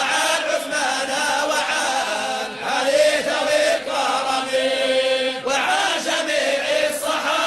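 Chanted Arabic devotional verse, voices singing long drawn-out phrases of a supplication that asks God's pleasure on the Companions Uthman and Ali.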